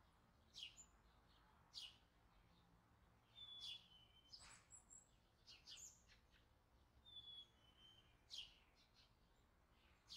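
Faint bird chirps, short and high, scattered throughout, with a brief two-note whistle stepping down in pitch twice.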